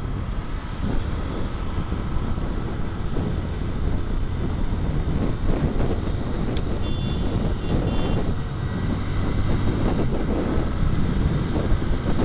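Motorcycle being ridden at speed on an open road: a steady rumble of engine, wind and road noise. About seven seconds in there is a short click, then a few brief high beeps.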